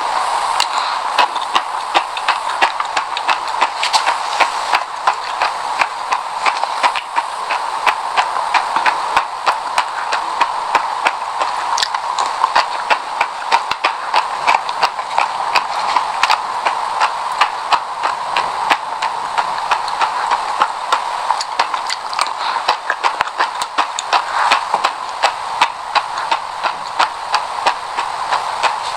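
Close-miked crunching of sesame seeds being chewed: a dense, irregular run of small sharp crackles, several a second, over a steady hiss.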